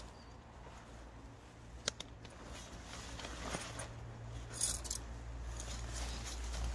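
Handling of a nylon bivvy bag and metal tent pegs during pitching: light rustling of the fabric with a few sharp metallic clicks, one about two seconds in and a quick cluster near the end. A steady low rumble sits underneath and grows toward the end.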